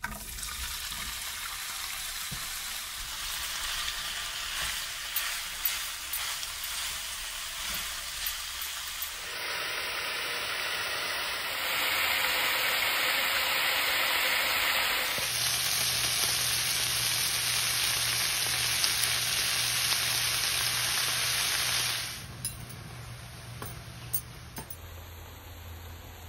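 Sliced sausage frying in hot oil in a skillet, a steady sizzle that starts suddenly as the pieces are tipped into the pan. The sizzle gets louder about halfway through, then drops to a quieter sizzle with a few light ticks near the end.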